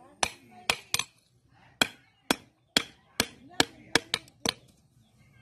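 Hand hammer striking an iron bull shoe on a small stake anvil set in the ground: about a dozen sharp, ringing metallic blows at an uneven pace, stopping shortly before the end.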